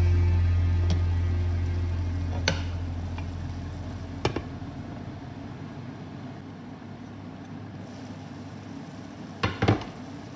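Background music fades out over the first few seconds, leaving the faint simmer of a chicken stew in a frying pan. A few sharp knocks of a wooden spatula and a glass lid against the pan come through, two of them close together near the end.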